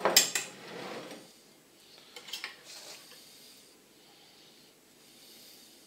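Tableware being handled: a sharp clink of metal cutlery against a ceramic or glass bowl right at the start, with a short scraping tail of about a second, then a few lighter clicks a couple of seconds in.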